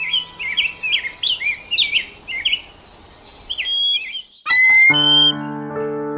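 A bird chirping in quick, repeated hooked notes over faint background music for about four seconds. Then louder music with held chords and a rising melody takes over.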